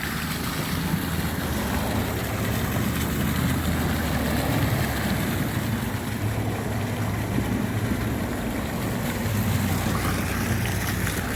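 Steady road traffic rumble from passing vehicles, mixed with the even splashing hiss of a small outdoor water fountain.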